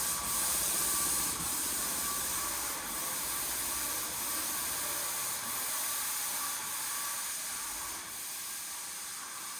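Paint sprayer spraying, a steady high hiss.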